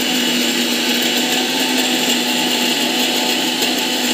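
Electric mixer grinder (mixie) running steadily at full speed, grinding coconut chutney with a little water in its jar: a loud, even motor whir with a steady low hum.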